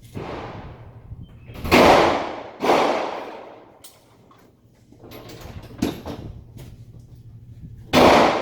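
Gunshots: four loud reports at uneven intervals, each trailing off in an echo lasting up to about a second.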